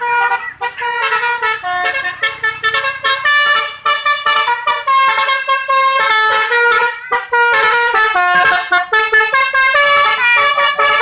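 Tour bus's basuri 'telolet' multi-tone horn playing a tune: a quick run of loud stepped horn notes, broken briefly about seven seconds in.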